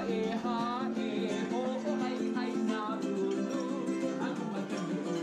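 Music: a ukulele playing, with a man singing along.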